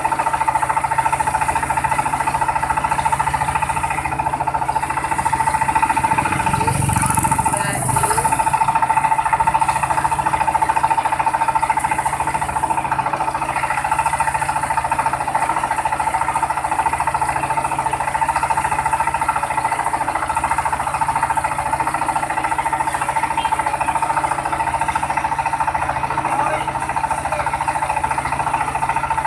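Truck-mounted mobile rice mill running steadily, its engine and milling machinery giving a constant drone with a strong steady whine. A brief disturbance comes about seven seconds in.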